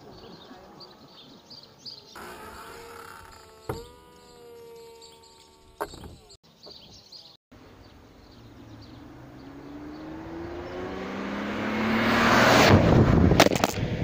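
BMW 320Ci E46's 2.2-litre M54 straight-six on its original exhaust, accelerating toward and past, its note climbing in pitch and growing loud, loudest near the end, then dropping away. Before it builds, fainter steady humming with a few sharp clicks.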